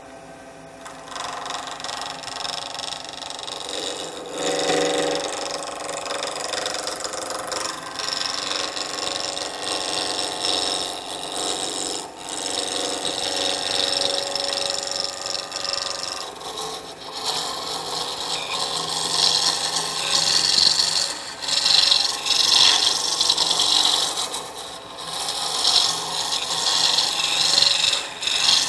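A roughing gouge cutting a spinning cocobolo pen blank on a JET 1221VS wood lathe: a continuous scraping, rasping cut that starts about a second in and grows louder and rougher in the second half as the shavings fly.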